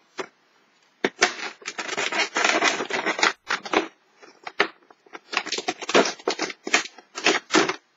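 Cardboard Kinder Chocolate advent calendar door being pried open and the foil-wrapped chocolate pulled out: crackling and scraping of cardboard and wrapper in two spells, the first about a second in, the second a little after the halfway point.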